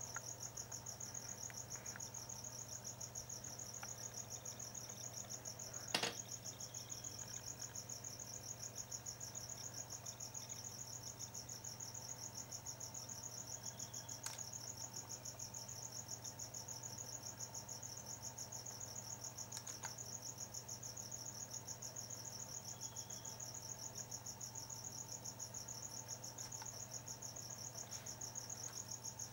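Crickets chirping in a steady, fast-pulsing high trill, over a faint steady low hum. A single sharp click about six seconds in, with two fainter ones later.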